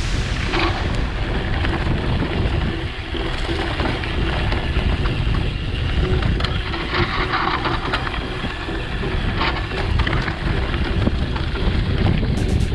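Wind buffeting the microphone along with the rattle and clatter of a mountain bike riding fast over a rough singletrack trail.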